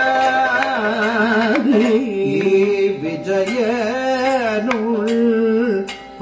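Kathakali vocal music: a singer holding long notes that waver and bend in pitch, with a few sharp percussion strokes.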